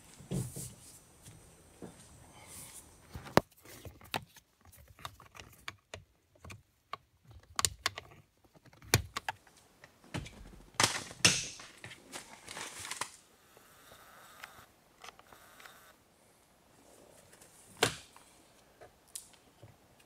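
Scattered sharp clicks, taps and rustling of hands and a tool working at a car's steering wheel to release the airbag module. The loudest clicks come around the middle and once near the end.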